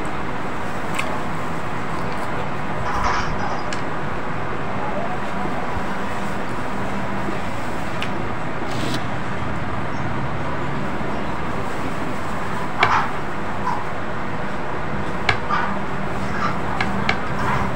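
A person eating with her hands: a few short chewing and mouth clicks, bunched near the end, over a steady background noise.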